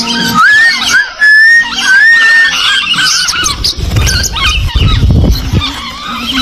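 Birds chirping and whistling: a clear whistle that rises and then holds level over the first two seconds or so, amid busy high chirps. A low rumble comes in past the middle for about a second and a half.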